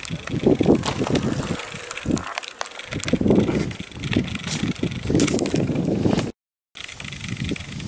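Gusty wind rumbling on the handheld camera's microphone, swelling and fading unevenly. The sound cuts out completely for a moment about six and a half seconds in.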